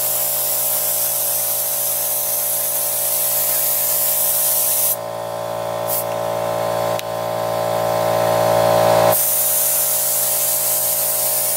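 Compressed air hissing steadily from an air-compressor nozzle pushed under a new foam bicycle grip, with a steady whistle-like tone in the hiss. The air lifts the stiff grip so it can be pushed onto the handlebar. The hiss changes tone abruptly several times as the nozzle shifts, with a click about seven seconds in.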